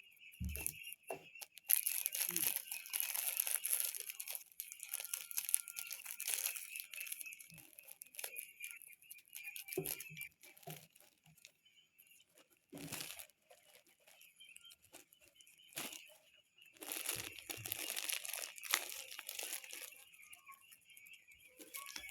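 Bursts of rustling and crinkling, like plastic or paper being handled, with a few short dull thumps and a faint steady high buzz underneath.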